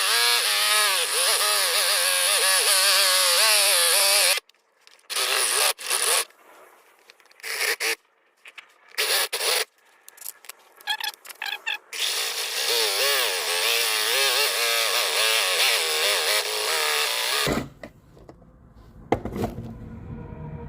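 Sped-up sound of a power drill boring through glass with a carbide-tipped glass bit: a high, wavering whine in two long stretches, with short bursts and pauses between them. Near the end it gives way to quiet background music.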